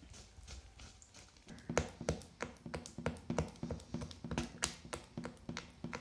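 Metal spoon stirring a thick paste of milk powder, condensed milk and curd in an enamel bowl. Soft scraping at first, then from about a second and a half in, rhythmic clinks of the spoon against the bowl, about four a second.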